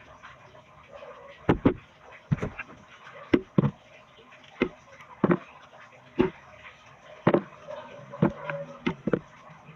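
Kitchen knife paring the thick rind off a santol fruit: a series of sharp cutting clicks about once a second, some in quick pairs.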